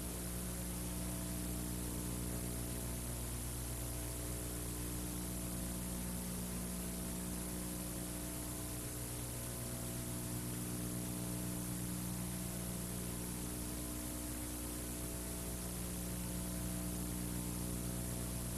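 Steady electrical hum with an even hiss, like mains hum and tape hiss on an old recording's sound track; no tool or cutting sound stands out.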